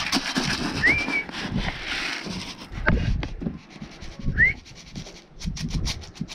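Wind buffeting the microphone, with low knocks and thumps of movement and a quick run of clicks near the end. Two short rising whistles, about a second in and again about four and a half seconds in.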